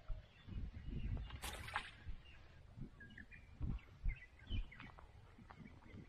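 Wind buffeting the microphone in irregular low gusts, with small birds chirping briefly, mostly in the second half.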